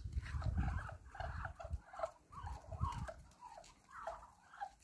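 Farmyard poultry giving a quick string of short soft calls, about three a second, with a low rumble underneath in the first two seconds.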